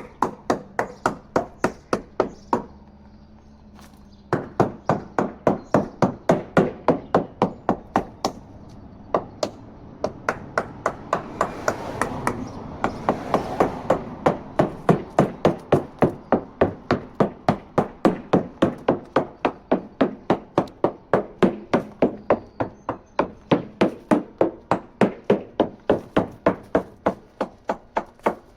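Small hammer tapping a fiberglass boat hull in a quick, even series of knocks, about three a second, with a short pause near the start. The surveyor is sounding the hull for dull, thudding spots that would mean the fiberglass is separating.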